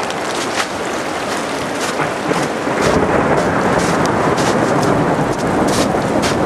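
Rain falling steadily during a thunderstorm, with scattered sharp drop hits close by. A deeper low rumble comes in about three seconds in.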